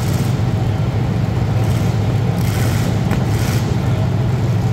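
Demolition derby cars' engines running at idle, a steady low rumble filling the arena.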